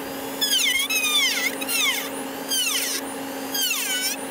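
Dremel rotary tool with a cutting wheel cutting access squares into the hatch's inner panel. Its high whine drops in pitch about four times as the wheel bites, recovering in between.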